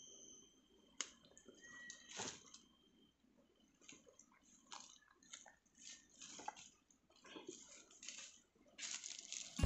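Faint irregular rustling and crinkling of a backpack being packed and swung onto a shoulder, with dry leaves crunching underfoot.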